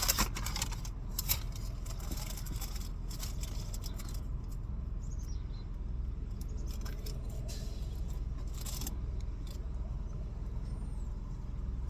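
Steady low rumble with scattered light clicks and rattles. The clicks are thickest in the first second and come again around three and nine seconds in.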